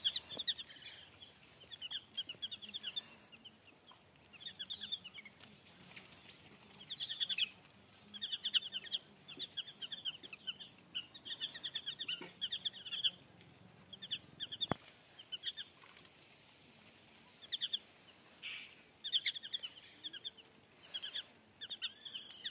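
A flock of chicks peeping: many short, high, falling cheeps coming in bursts with brief quieter lulls.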